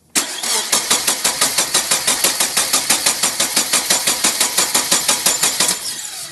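Subaru EJ205 turbo flat-four being cranked over by its starter motor without firing, a rapid even beat of about six pulses a second that stops near the end. It won't catch because the fuel rail has been run empty with the feed hose clamped off.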